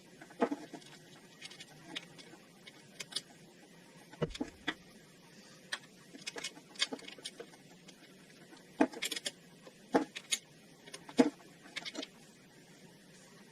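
Scattered clicks, clinks and knocks of hand tools and metal parts being handled, with a few sharper strikes near the end.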